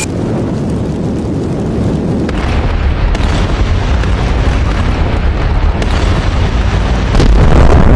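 Designed explosion sound effect, built from layered stock effects: a continuous deep rumble that thickens about two seconds in and swells louder near the end.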